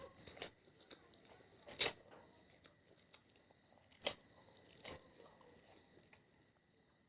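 Close-miked mukbang eating sounds: quiet chewing with soft wet noises and a few sharp crunches, three of them louder, about two, four and five seconds in.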